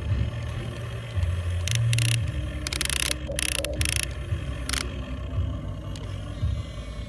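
Small electric motors of a radio-controlled excavator and dump truck running, their low drone shifting in pitch. Several short hissing bursts come in the middle.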